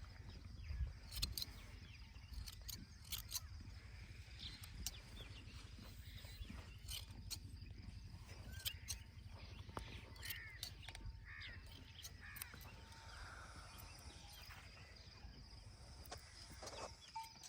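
Shears snipping through a sheep's fleece in scattered, irregular clicks, with a few bird calls around ten seconds in.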